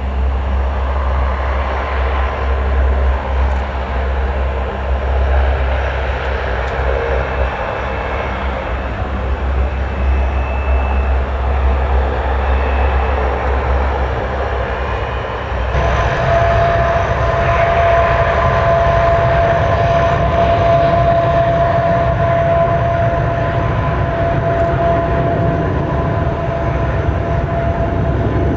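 The four Allison T56 turboprop engines of a P-3C Orion running at taxi power, a steady propeller drone. About halfway through it grows louder and a steady high whine comes to the fore.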